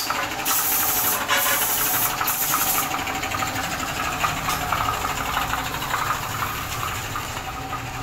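Angle grinder working steel: harsh hissing bursts of grinding over about the first three seconds, then the motor running steadily.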